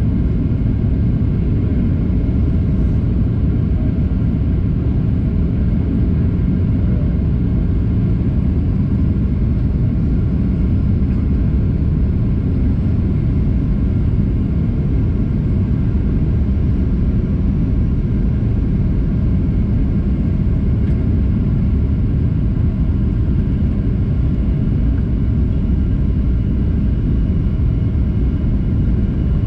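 Steady cabin noise inside a jet airliner on descent: a low rumble of engines and rushing air, with faint steady whining tones above it.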